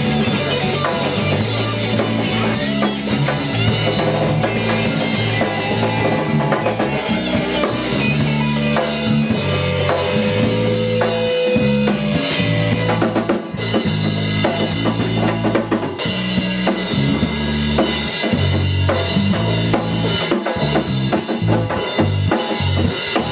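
Live rock band playing, drum kit loud with bass drum and snare over bass and guitar, with a brief drop about 13 seconds in.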